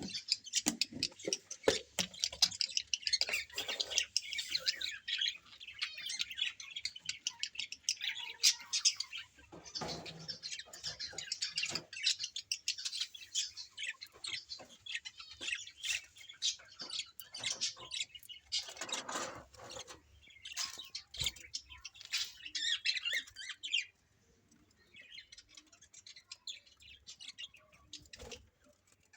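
A group of small birds chirping and chattering rapidly, with many short clicks mixed in. The chirping thins out and grows faint for the last few seconds.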